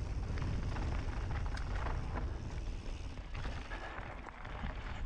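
Wind buffeting the microphone as a mountain bike rolls down a dirt trail, with tyre noise and scattered clattering knocks from the bike over rough ground. It eases off a little about three seconds in.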